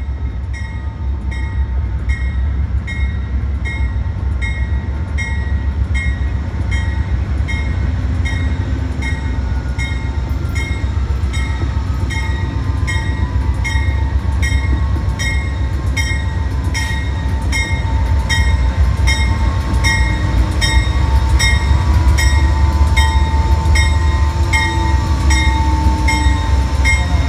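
Amtrak GE Genesis P42DC diesel locomotive arriving slowly at a station platform, its bell ringing steadily at about three strokes every two seconds. The deep diesel rumble grows louder as the locomotive draws alongside, and a thin squeal slides down in pitch and then holds as the train slows.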